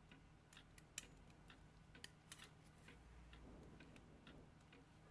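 Faint, irregular small metallic clicks of tweezers and brass plates knocking as a clock movement's plate is worked back down over the wheel pivots. Two sharper clicks come about one and two seconds in.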